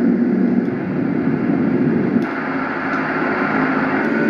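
A sleep sound machine's small speaker plays recorded fan noise while its fan tracks are being stepped through. A short click comes about two seconds in, and the sound switches from a lower fan drone to a higher, airier hiss. Another click near the end brings a further track change with a faint steady hum.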